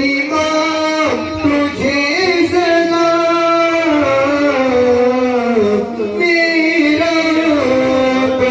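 A male voice singing a slow, melismatic devotional song (a naat) into a microphone, holding long notes that slide from pitch to pitch.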